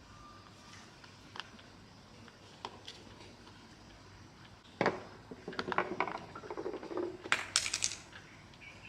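Small metal parts and tools being handled: a few light clicks, then a knock about five seconds in followed by a run of clinks and rattles.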